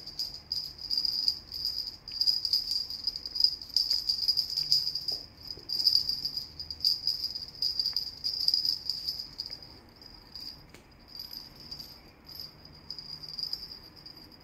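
Two small bells on a rope cat toy jingling steadily as the toy is jerked and dragged about, high and bright, softer and more scattered from about ten seconds in.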